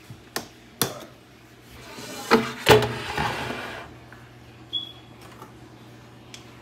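Power AirFryer XL basket drawer being pulled out of the unit: a couple of light clicks, then a sliding scrape and two loud clunks as the basket comes free about two and a half seconds in.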